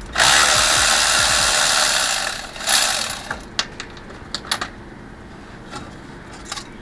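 A loud hiss lasting about two seconds, then a shorter one, followed by scattered light metallic clicks and taps of tools at a truck's brake caliper.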